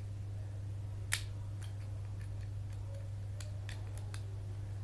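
Small sharp clicks of a tape measure being handled and worked on by hand: one louder click about a second in, then a few lighter ticks, over a steady low hum.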